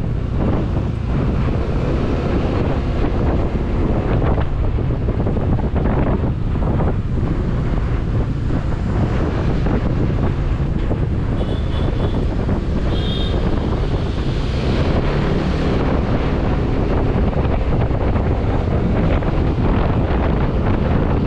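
Wind buffeting a GoPro's microphone on a moving motorcycle, with the motorcycle's engine and road noise running underneath. Two brief high-pitched tones sound about halfway through.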